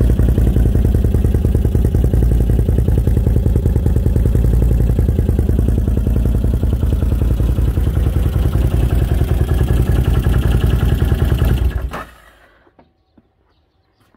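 Can-Am Outlander ATV engine idling steadily with an even exhaust beat through its customized stock muffler fitted with a silencer insert, then shut off about twelve seconds in.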